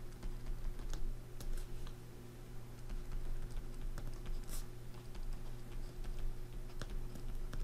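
Stylus writing on a pen tablet: light, irregular taps and scratches of the pen tip as words are handwritten, over a steady low electrical hum.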